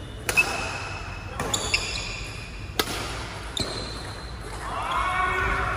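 Badminton rally: several sharp cracks of rackets striking a shuttlecock, about a second apart, with short high squeaks of court shoes on the floor between hits.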